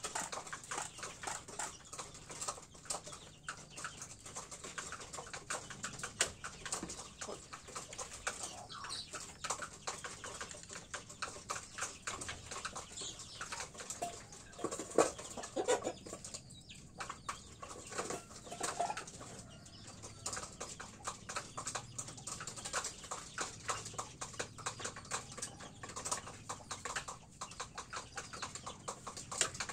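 Chickens in a pen clucking, with many short ticks throughout and a louder run of pitched calls about halfway through.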